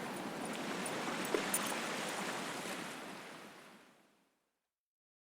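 Steady hissing, rushing noise with a couple of faint ticks, fading out about three and a half seconds in to dead silence.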